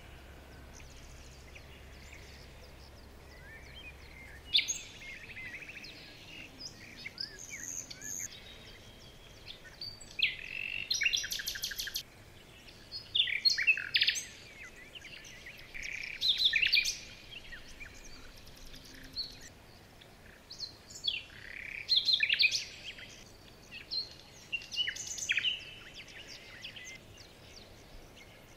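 Small birds chirping and singing: bursts of short high chirps, twitters and trills every second or two over a faint steady background hiss, beginning about four seconds in, with a quick buzzy trill near the middle.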